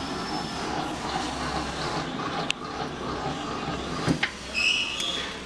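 Hobart P660 60-quart mixer running with its dough hook in an empty bowl: a steady mechanical whir, with a few sharp clicks and a brief high squeak near the end.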